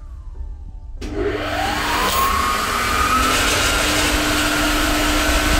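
Electric motor-driven irrigation water pump starting up: the sound comes in suddenly about a second in with a rising whine as the motor spins up, then runs steadily with a loud rushing noise and a steady hum.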